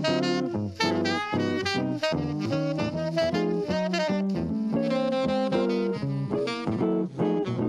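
Live jazz duo of tenor saxophone and archtop electric guitar: the saxophone plays a busy line of quick notes while the guitar accompanies underneath.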